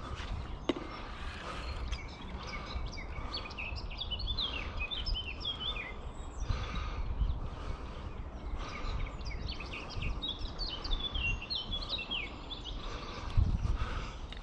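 Songbirds singing: a steady stream of quick chirps and trills, over a low rumble, with a dull thump near the end.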